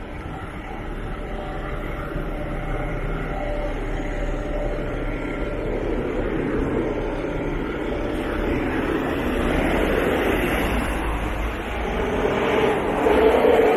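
Road traffic close by: a double-decker bus's diesel engine running beside the pavement in slow traffic, with a car approaching behind it. The traffic noise grows louder from about halfway and is loudest near the end.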